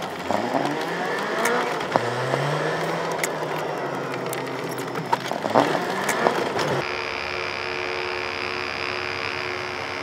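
Car engine heard from inside the cabin, its pitch rising and falling as the car accelerates and slows, with a few sharp clicks. About two-thirds of the way through it cuts abruptly to the steady electric buzz of a tattoo machine.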